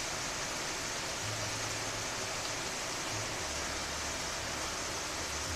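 Steady rain falling, a dense even hiss.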